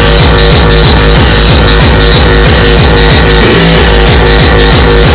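Hardcore techno played very loud over a club sound system. Fast, distorted kick drums come about three a second, each dropping in pitch, under a held synth tone.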